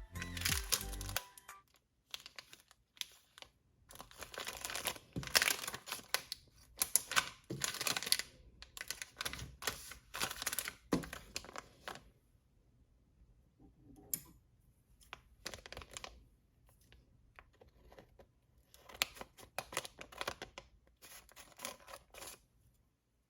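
Crinkly packaging being crumpled and torn open by hand while small toys are unboxed. It comes in irregular rustling bursts, busiest in the first half, then sparser and quieter with pauses.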